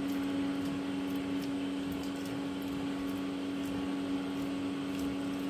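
A steady mechanical hum with a constant low tone, holding level throughout.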